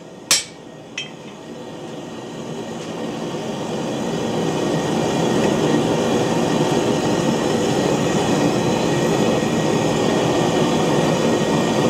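Two last hammer blows on hot steel on the anvil, the second fainter. Then a steady rushing roar swells over about four seconds and holds.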